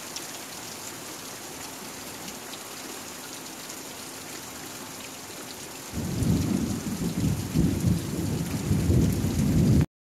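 Heavy rain pouring steadily. About six seconds in, a loud, rolling rumble of thunder comes in over the rain and goes on until the sound cuts off just before the end.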